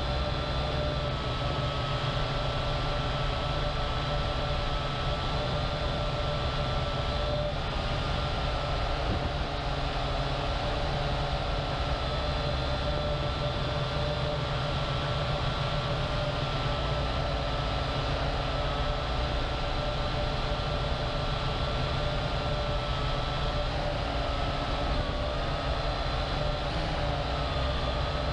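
Syma X8HG quadcopter's motors and propellers heard from its onboard camera: a steady whine of several tones that waver slightly in pitch as the drone holds and turns, over a low rumble of rushing air.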